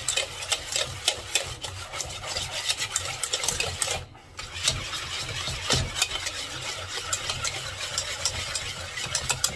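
A utensil stirring white chocolate ganache in a pan, scraping and clicking against the metal over and over while the chocolate melts into the hot cream and butter. The stirring drops away for a moment about four seconds in, and a low steady hum runs underneath.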